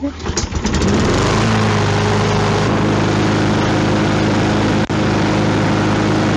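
John Deere JS48 mower's Briggs & Stratton single-cylinder engine pull-started by its recoil cord, catching about a second in on the first pull, then running steadily. A cold start by hand because the electric-start battery is dead.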